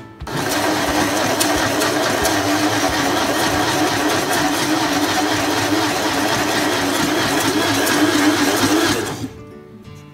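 Single-serve personal blender running, blending banana and soy milk into a smoothie: a brief pause right at the start, then a steady motor whir with a slightly wavering hum for about nine seconds before it cuts off.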